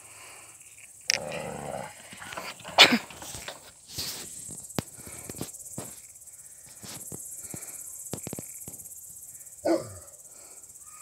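Dog barking a few separate times, the loudest bark about three seconds in, with another near the end.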